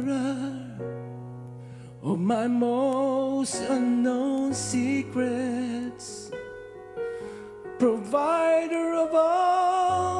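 Live worship song: a solo voice singing long, held notes with vibrato over sustained keyboard chords and bass notes.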